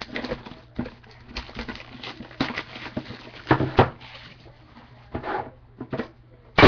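Trading card box and pack being opened and handled by hand: irregular rustling and clicks of wrapper and cardboard, with a sharper loud rustle at the very end.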